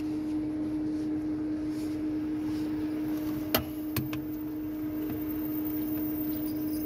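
Steady hum of a Mazda 3 idling, heard inside the cabin, with two sharp clicks about half a second apart a little past the middle as the seatbelt is buckled.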